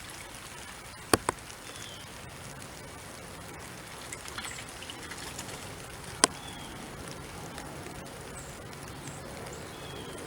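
Soft rain falling as a steady hiss, with faint short bird chirps. Three sharp ticks stand out above it: two close together about a second in and one about six seconds in.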